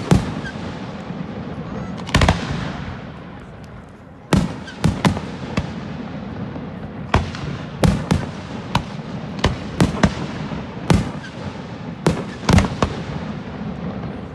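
Aerial fireworks display: shells bursting with sharp bangs at irregular intervals, a dozen or more, some in quick pairs, over a continuous background of noise.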